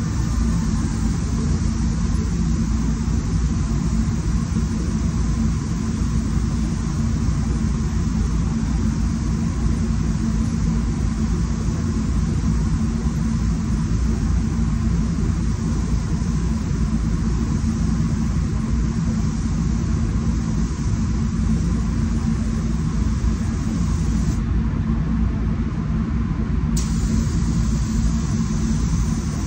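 Paint spray booth's ventilation fans running with a steady low rumble, under the hiss of a spray gun laying a drop coat at about 10 psi. The hiss cuts out for about two seconds near the end, then comes back.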